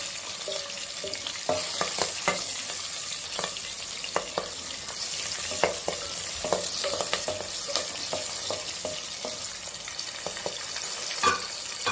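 Green chillies and whole spices sizzling in hot oil and ghee in a kadai, with a steady hiss. A wooden spatula stirs them, scraping and tapping against the pan roughly once a second.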